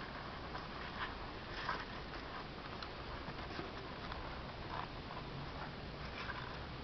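Kittens suckling at their mother cat: soft, irregular smacking clicks over a steady background hiss.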